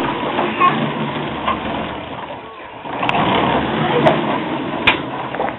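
A toddler's Tonka ride-on toy truck rolling on a hard kitchen floor, its plastic wheels making a continuous rumble that dips briefly about halfway through and then picks up again. A few sharp clicks come in the second half.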